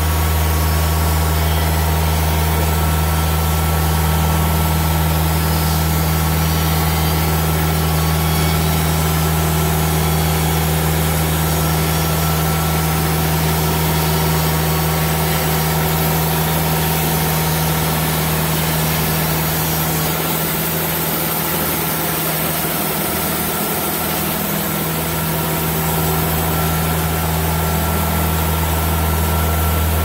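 Portable bandsaw sawmill's diesel engine running steadily while the band blade, which has some dullness, saws lengthwise through a cedar log. The engine note wavers and dips slightly about two-thirds of the way through.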